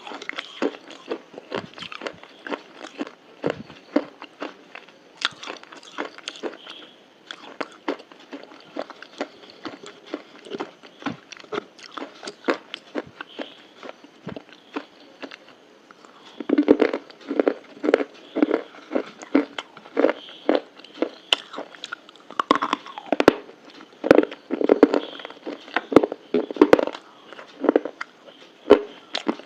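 Close-miked eating: crisp crunching bites and chewing, a rapid stream of sharp crackles that grows louder and fuller a little past halfway.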